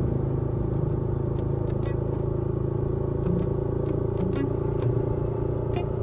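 Suzuki GSX150's small single-cylinder engine running steadily as the motorcycle rides along, its note rising slightly near the end.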